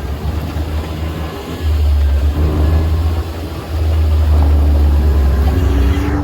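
UTV engine running while driving, revving up about twice with a rising pitch and easing off briefly in between, over a heavy low rumble.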